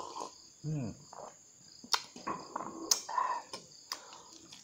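A man sips coffee from a mug and gives a short breathy sound, then about four sharp clinks and knocks of crockery and a spoon, the loudest near three seconds in. Crickets chirr steadily in the background.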